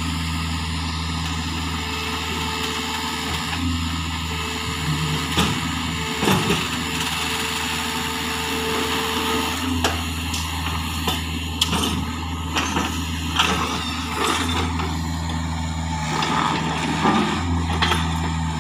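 Hitachi mini excavator's diesel engine running steadily under load while the arm works. A higher whine is held for several seconds in the first half, and scattered knocks and clanks come through in the second half.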